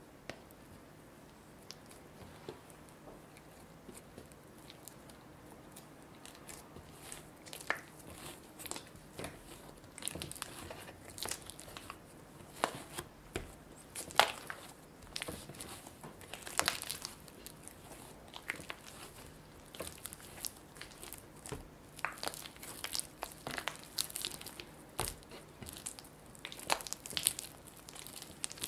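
Hands kneading butter into soft, sticky yeast dough on a wooden board: irregular wet tearing and squishing smacks as the dough is stretched and folded. The sounds start a few seconds in and come thick and fast, the loudest about halfway through.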